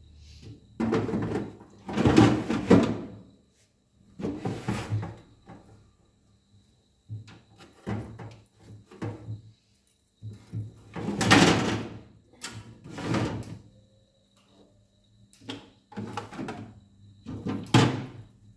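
A refrigerator being loaded by hand: a string of separate knocks and scrapes as containers and baskets are moved in and out and the fridge drawers are slid and shut, with short pauses between them.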